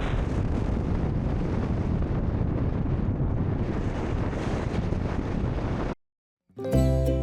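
Steady rushing noise of wind buffeting the microphone over a mountain creek's running water. It cuts off abruptly about six seconds in, and plucked guitar-like music starts near the end.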